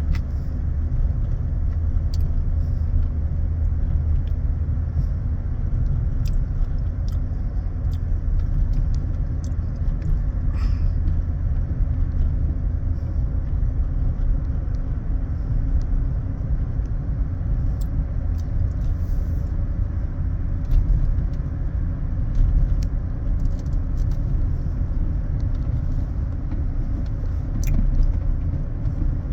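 Steady low rumble of a motor vehicle on the road, even throughout, with a few faint ticks.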